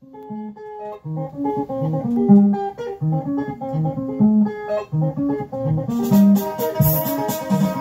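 A vinyl record of Cameroonian dance music playing: interlocking electric guitar lines over a bass figure, with shakers and cymbals joining about six seconds in.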